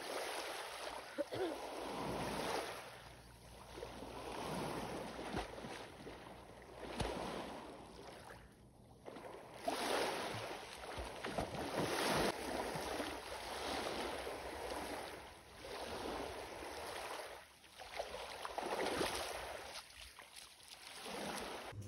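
Small lake waves washing in against the shore, a swell of water noise about every two seconds.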